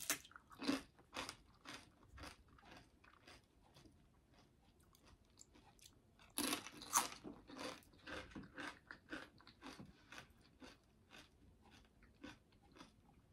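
A person chewing and crunching food, a run of short, crisp crackles in irregular spurts, busiest about six to nine seconds in.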